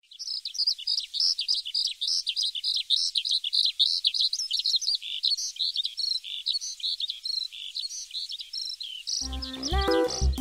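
Small birds chirping rapidly and continuously, many high, quick notes overlapping. About nine seconds in, plucked-string music begins.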